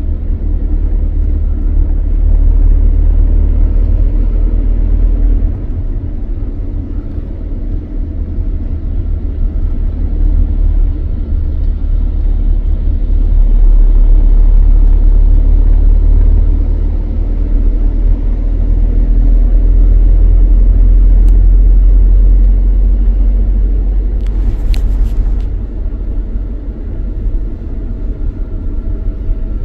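Inside a moving car's cabin: a steady low rumble of engine and tyres on a wet road, with a hiss of road noise over it. It grows louder and softer a few times.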